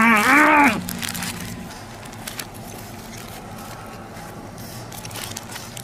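A man's drawn-out, wavering cry with no words, lasting under a second at the start. After it, the low steady hum of the car's idling engine inside the cabin, with scattered small crackles from a paper burger wrapper being handled.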